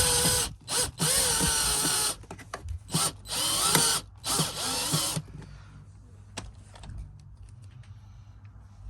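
Power drill running in three short bursts of a few seconds each, its whir rising and falling in pitch with the trigger, then a few light clicks once it stops.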